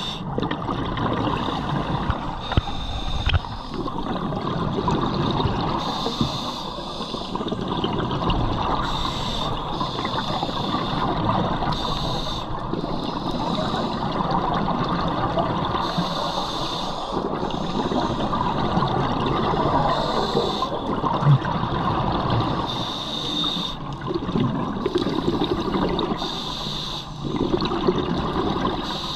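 Scuba diver breathing through a regulator, heard underwater: repeated hissing breaths every couple of seconds over a steady bubbling wash of exhaled air and water noise.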